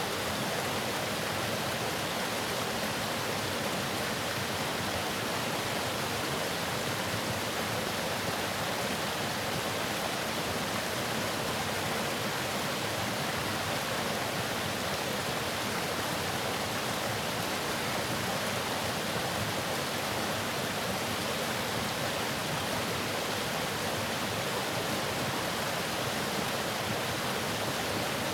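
Waterfall: falling water rushing in a steady, unbroken hiss with no change in level.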